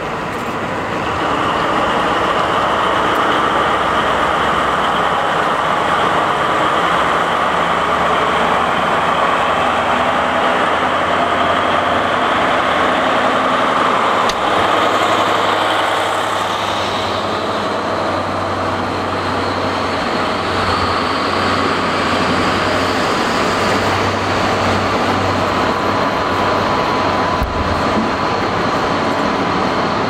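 DB class 218 diesel locomotive's MTU 4000 engine running up under load as the locomotive pulls away, getting louder about a second in. A whine climbs slowly in pitch as it gathers speed.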